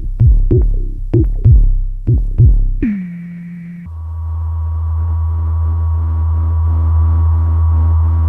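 Dave Smith Mopho monophonic analog synthesizer playing presets: a repeating pattern of short plucky bass notes, about three a second, each dropping in pitch. Just under three seconds in, a note slides down and holds briefly, then a new patch starts: a sustained deep drone with a thin high tone and a faint pulsing on top.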